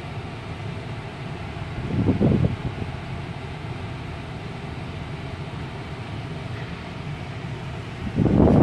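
Steady hum and hiss inside a car's cabin with the engine running, broken by two brief louder low rumbles, about two seconds in and near the end.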